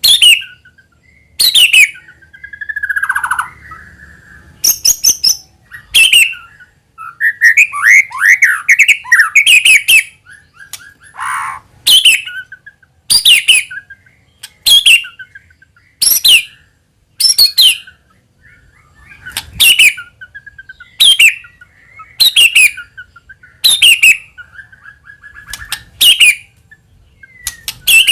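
White-rumped shama (murai batu) singing: sharp, loud notes repeated about every second and a half, with softer warbling and gliding phrases between them, busiest in a run of fast phrases about eight to ten seconds in.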